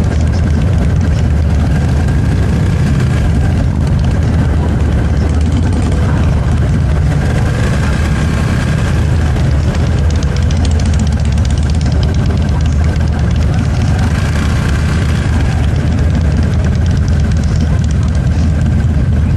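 Motorcycle engine running steadily at low speed, a constant low drone with road noise and no change in pace.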